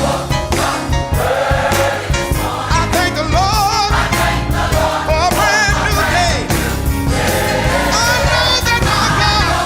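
Gospel music: a choir singing with a band, bass and drums.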